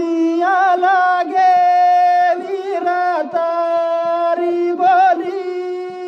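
Devotional Banjara bhajan being sung: long, drawn-out sung notes with wavering ornaments, over musical accompaniment.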